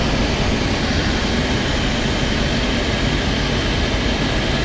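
Steady rumble and hiss of a vehicle driving, with no distinct events.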